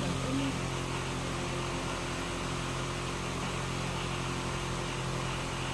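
Steady mechanical hum over an even hiss, a machine running without change.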